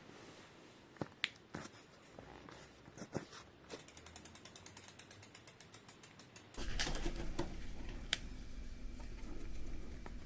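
Bicycle rear freewheel pawls clicking as the wheel turns: a few separate clicks, then an even ticking at about eight or nine a second for three seconds. About six and a half seconds in, the ticking stops and gives way to louder low handling noise with a couple of knocks.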